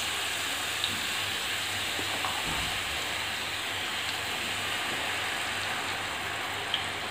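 Boondi frying: drops of gram-flour batter pressed through a perforated spoon sizzle steadily in well-heated cooking oil.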